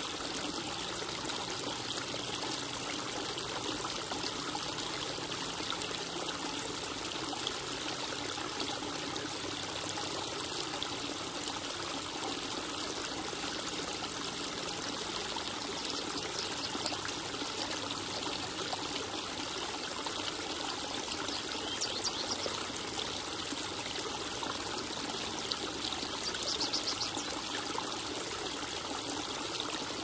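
Small rock waterfall spilling into a koi pond: a steady splashing trickle of running water, with a couple of slightly louder splashes in the second half.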